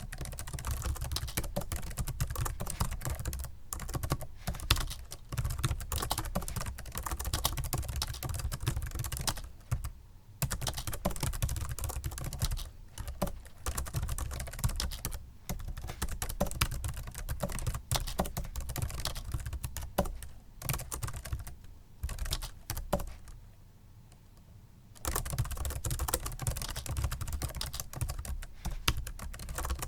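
Typing on a Microsoft Sculpt Ergonomic membrane keyboard: fast, continuous runs of soft key presses with brief pauses, and a stop of about two seconds shortly before the end.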